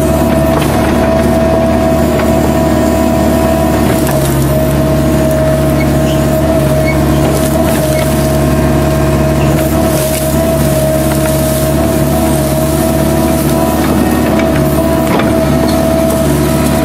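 Kubota U-45 mini excavator running steadily while working, its engine and hydraulics giving a constant whine over a low drone, with faint cracking now and then.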